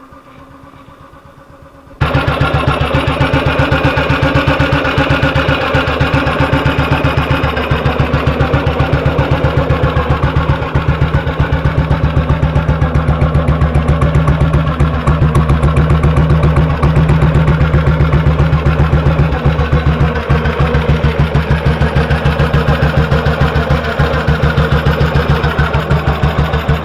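1958 BSA C12's single-cylinder four-stroke engine running with a steady, even beat. It is faint at first and suddenly much louder about two seconds in. The firing is regular with no misfire, which the owner takes as the misfire being sorted.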